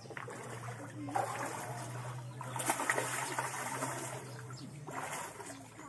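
A hooked fish thrashing and splashing at the surface of a pond while it is being played on rod and line, in about three bursts of splashing a second or so apart.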